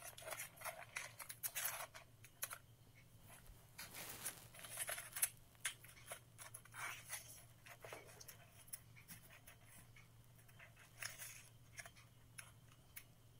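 Scissors snipping in short, faint, irregular cuts, trimming off excess from a paper and toothpick craft, with light handling of the paper.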